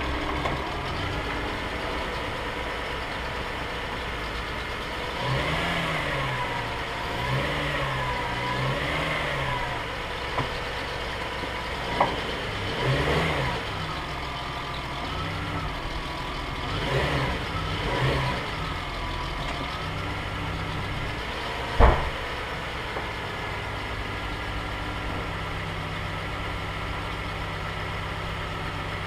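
2002 Toyota Camry's V6 engine idling and being revved up and down in a series of short throttle blips while it is shifted between park, drive and reverse, a check of engine movement on a suspected worn motor mount. Two sharp thumps stand out, the louder near the end of the revving, and the engine then settles back to a steady idle.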